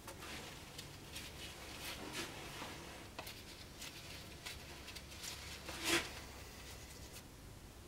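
Light scratching of a small glue brush being worked over the pieces, with scattered clicks and handling noises, then a single louder knock about six seconds in as something is set down on the workbench.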